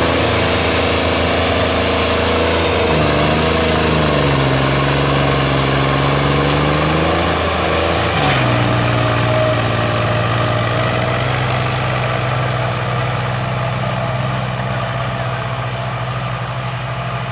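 Diesel engines of a New Holland tractor and a Swaraj 855 tractor pulling disc harrows under load, running loud and steady. Their pitch shifts a few seconds in and again about halfway, then holds steady and slowly fades as they pull away.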